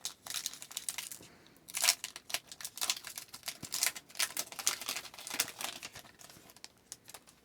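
Foil hockey-card pack wrapper crinkling and tearing as a pack is opened, a dense run of quick crackly rustles that thins out near the end.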